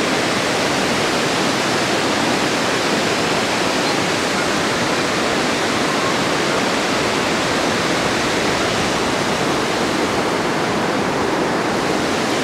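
Water pouring over a dam spillway: a steady, unbroken rush of white water.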